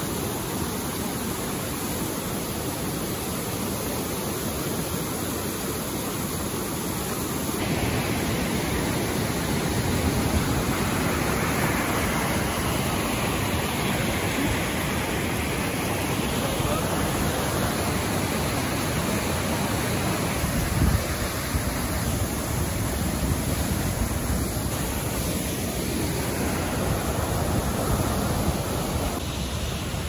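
Creek water rushing and splashing over granite slabs at a waterfall cascade, a steady rush that gets louder about a quarter of the way in.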